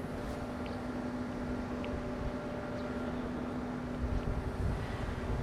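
Steady mechanical hum of machinery, with gusty wind rumble on the microphone growing about four seconds in.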